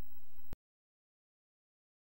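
Faint room tone with a low steady hum, cut off about half a second in by a sharp click, then complete silence as the audio track ends.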